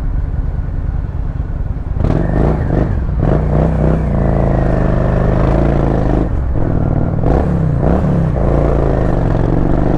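Motorcycle engine rumbling at low revs for the first couple of seconds. About two seconds in it revs up as the bike pulls away through traffic, and its pitch rises and dips with throttle and gear changes.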